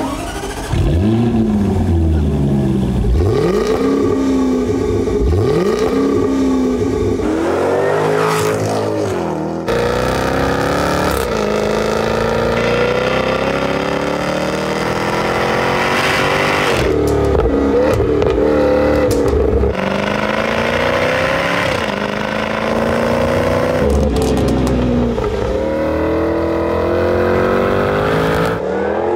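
Jaguar F-Type engine and exhaust, revved in quick blips that rise and fall several times, then accelerating hard through the gears, its pitch climbing and dropping at each upshift. The recording is cut together from several takes.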